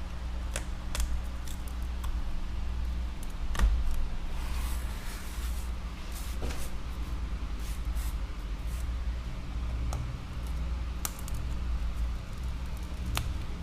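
Small clicks and a short scraping crackle from tools prying the cracked glass digitizer off an iPad Air, over a steady low hum.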